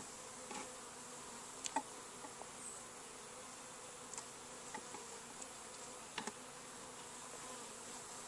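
Honeybees humming steadily around a wooden Langstroth hive, with a handful of light wooden knocks and clicks as the entrance reducer is worked at the hive entrance.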